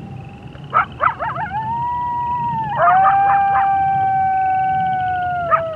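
Coyotes yipping and howling: a few quick yips about a second in, then long howls held at a steady pitch, with a second, louder howl joining a few seconds in and both dropping away near the end. Frogs and toads trill faintly behind.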